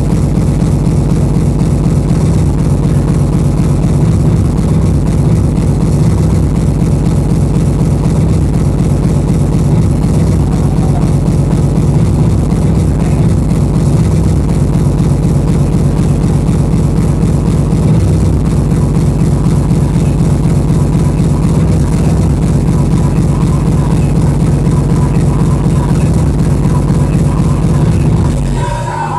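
Speedcore played loud over a club sound system: distorted kick drums in a very fast, unbroken stream that runs together into a steady, engine-like drone. Near the end it drops in level and changes to a different section of music.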